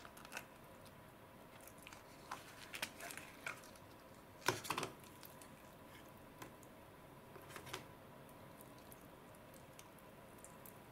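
Sticky slime being pulled out of a plastic dish and stretched by hand: scattered wet clicks and crackles, with the loudest cluster a little before halfway through.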